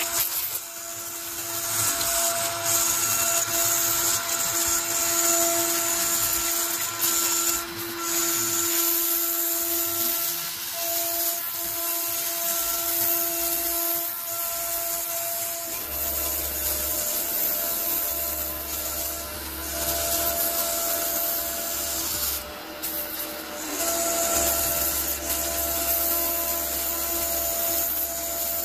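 Onefinity CNC router's spindle whining steadily while a single-flute upcut spiral bit cuts 3/8-inch cast acrylic sheet, with a scratchy cutting noise; the footage is sped up to double speed. A low hum joins about halfway through.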